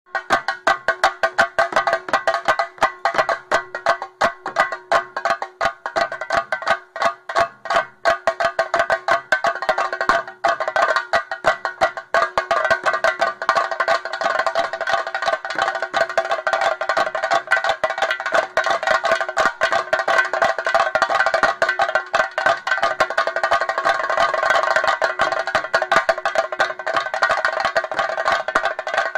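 Rapid, continuous metallic percussion for a theyyam ritual: many quick strikes over a steady bright ringing, as from ilathalam bronze hand cymbals.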